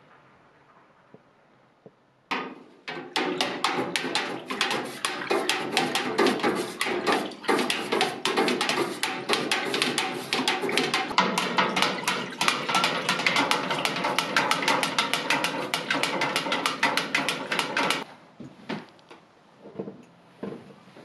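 A wooden stirring stick knocking rapidly against the sides of a metal vat of molten dyed candle wax while the wax is stirred: a fast clatter of several knocks a second. It starts about two seconds in and stops abruptly about three seconds before the end, leaving a few scattered knocks.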